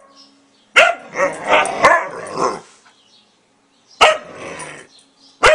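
Siberian huskies barking and howling in three bursts with wavering pitch. The first starts about a second in and lasts nearly two seconds, a shorter one comes near the middle, and another starts right at the end.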